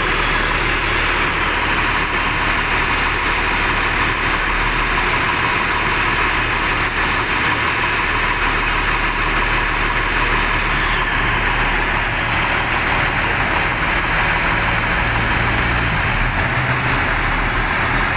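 Rear-mounted diesel engine of a coach idling steadily, running slightly unevenly ('pincang', limping). The crew suspect dirty or mixed diesel fuel clogging the fuel supply.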